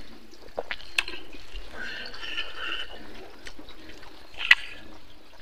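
Close-up eating sounds: wet chewing and lip smacking of someone eating rice and pork by hand, with a few sharp clicks, the loudest about four and a half seconds in.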